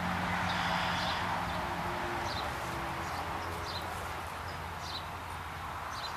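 Outdoor garden ambience: a steady background hiss with a small bird chirping briefly about once a second.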